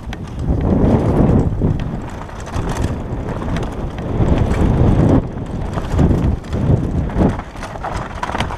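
Wind buffeting the microphone and the rumble of a downhill mountain bike's tyres on a rough dirt trail, rising and falling in surges, with short rattles and knocks from the bike over rocks and bumps.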